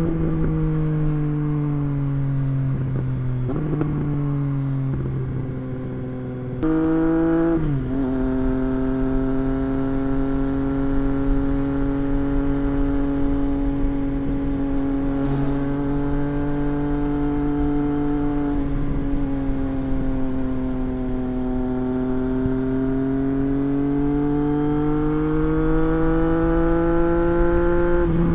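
Triumph Street Triple RS's 765 cc three-cylinder engine running through an aftermarket SC-Project S1 exhaust while riding. Its pitch drops sharply twice in the first eight seconds, as on upshifts, then holds steady at cruise and slowly rises near the end under light acceleration.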